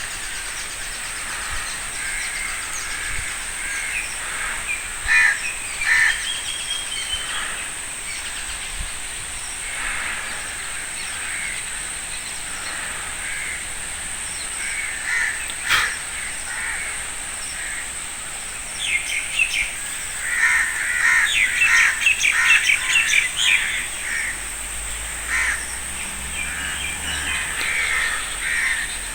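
Crows cawing among other bird calls, in repeated short calls that come thickest about two-thirds of the way through, over a steady high hiss.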